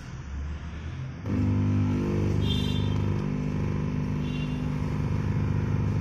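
A steady, low-pitched droning hum from a running machine starts abruptly about a second in and carries on evenly.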